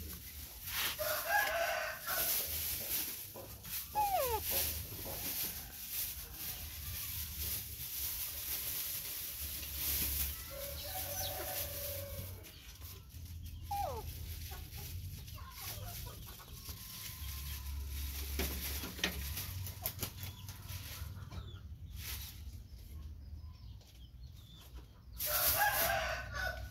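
Rooster crowing three times, each crow about a second long, with chickens clucking in between.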